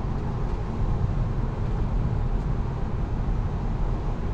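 Steady low rumble of road and tyre noise inside a Tesla Model 3's cabin while driving.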